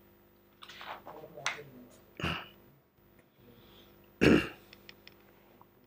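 A person clearing their throat between sentences: a few faint short mouth and throat sounds, then two brief louder throat noises, one about two seconds in and a stronger one just after four seconds.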